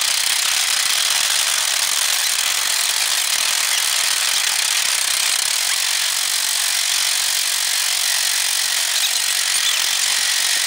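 Steady rushing wind and rumble on a moving roller coaster, loud and even throughout.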